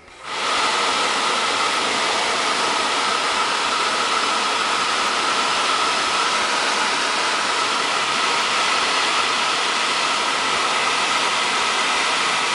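Nissan Sunny heater blower fan, wired straight to a car battery for a bench test before installation, spinning up within the first half second and then running steadily. It gives an even rush of air with a steady whine and blows strongly.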